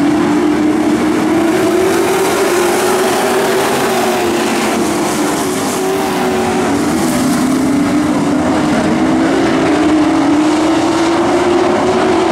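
A pack of dirt-track Pro Truck race trucks running at racing speed, several engines at high revs together. Their pitch sags around the middle and climbs again near the end as the field comes off the turns.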